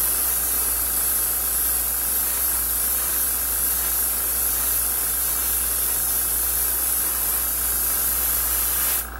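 Central Pneumatic airbrush spraying thinned acrylic paint onto a small model-car part: a steady hiss of air and paint that cuts off about nine seconds in as the trigger is released.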